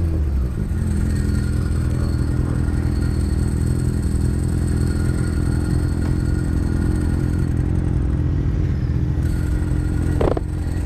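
Kawasaki ZX-6R 636 inline-four engine running at steady revs while riding, with a short sharp sound near the end.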